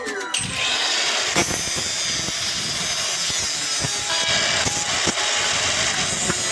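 A power tool running with a steady hiss, with a few sharp knocks, starting a moment after the music stops.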